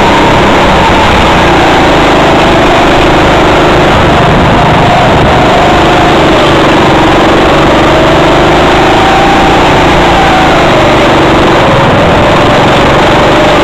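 Go-kart engine running loud and steady while the kart laps a track, its pitch rising and falling several times as it speeds up and slows down.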